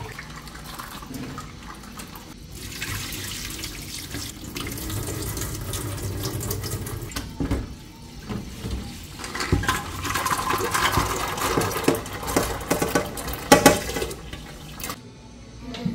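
Tap water running into an aluminium pressure cooker in a stainless-steel sink, with metal pots knocking against each other and the sink. Near the end a pot of red beans is tipped in, clattering into the cooker under the stream.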